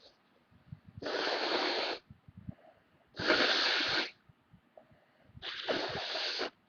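A person with a cold blowing a congested nose hard, three times, each blow a steady rush of air about a second long.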